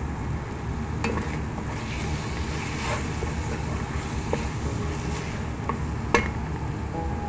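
Wooden spatula stirring chicken pieces frying in a pan, with occasional sharp knocks against the pan, the loudest about six seconds in, over a steady low rumble.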